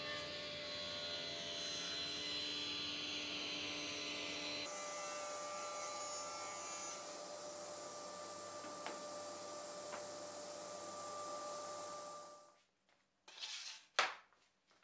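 Sliding table panel saw running and cutting a large solid-pine three-ply panel: a steady whirring noise with a few held tones, which stops about twelve and a half seconds in. Near the end, a brief rustle and then a single sharp knock of wood.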